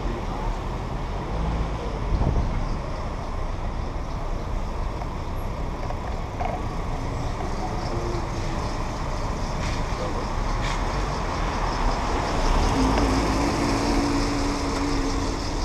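Steady road and traffic noise from a car driving slowly along a wet city street: engine and tyre noise with low wind rumble on the roof-mounted microphone. A low engine tone stands out near the end.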